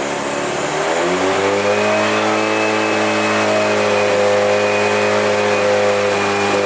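Mazda FD RX-7's rotary engine running, its speed climbing over the first second and a half and then holding at a steady high speed.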